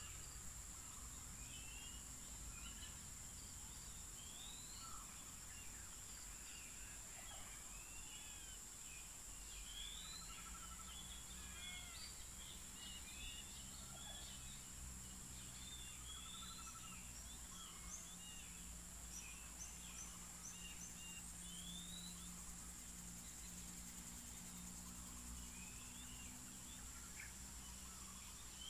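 Faint outdoor ambience: many birds calling with short rising chirps throughout, over a steady high-pitched insect drone and a faint low hum.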